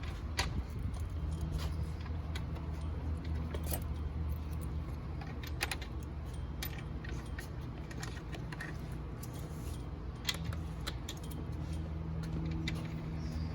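Small metal hardware clinking and clicking at irregular intervals as nuts, washers and tools are handled while the rear wing is bolted on, over a steady low hum.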